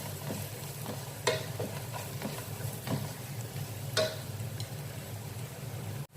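A spoon stirring onions and ground spices in a hot pan, with a light sizzle and a few sharper scrapes of the spoon against the pan.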